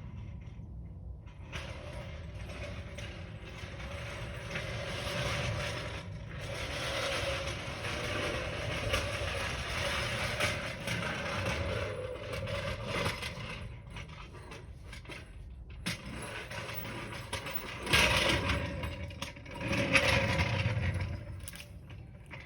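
Ratcheting and creaking of mechanical tools working on a car, with a couple of louder clanks near the end.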